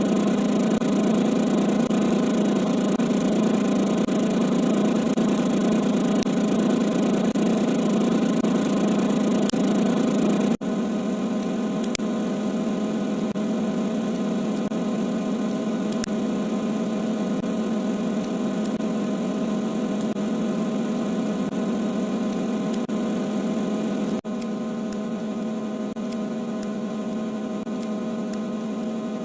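A steady machine-like hum with an even pitch and no rhythm. It is cut off abruptly twice and comes back a little quieter each time.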